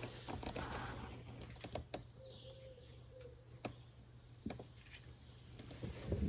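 Faint, irregular clicks of a 3/8-inch ratchet and 15 mm socket turning the engine oil drain plug back into the oil pan, snugging it only lightly rather than tightening hard.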